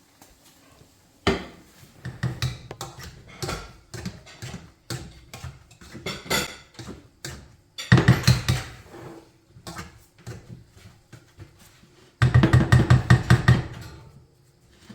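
Potatoes being mashed in a pot with a hand masher: runs of quick, repeated knocks several times a second, about eight seconds in and again near the end, with scattered clatter of pans and utensils between.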